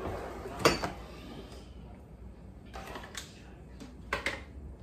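A few light knocks and clicks of kitchen items being handled on a countertop: one sharper knock about half a second in, then a couple of softer clicks near the end.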